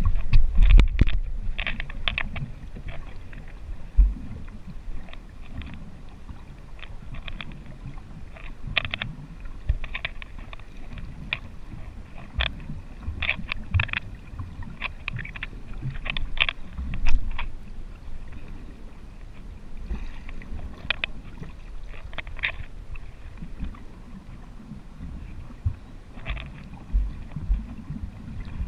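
Underwater sound picked up by a GoPro in its waterproof housing: a muffled low rumble of moving water with many scattered sharp clicks and crackles. It is loudest in the first couple of seconds.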